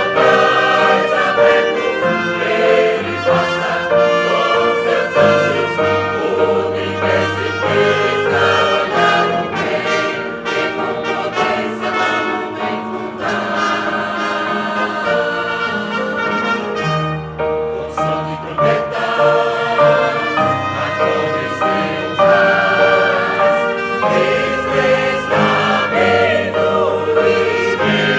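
A choir singing a Christian song in several voice parts, with instrumental accompaniment.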